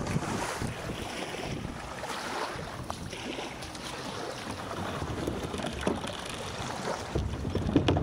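Wind buffeting the microphone of a camera mounted on a kayak, with small waves lapping as the hull is pushed into the shallows; a few brief knocks near the end.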